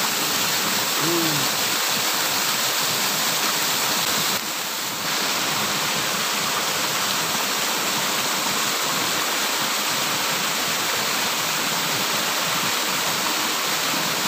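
Steady, noisy rush of water from a small cascade where a pond's outflow spills into a pool. The level dips briefly about four and a half seconds in.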